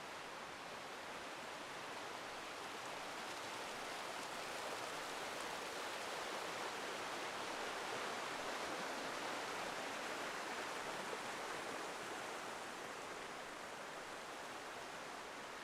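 Forest stream rushing and splashing over rocks and small waterfalls as a steady hiss, growing louder about halfway through and easing off again toward the end.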